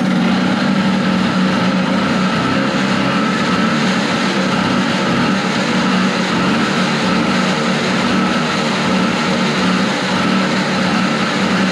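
1970 Evinrude Skeeter snowmobile's two-stroke engine running steadily on its first run after being revived.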